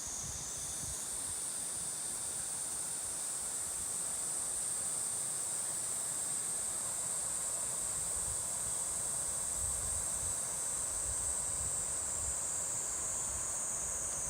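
Summer insect chorus: a steady high-pitched buzz that steps up slightly in pitch about a second in.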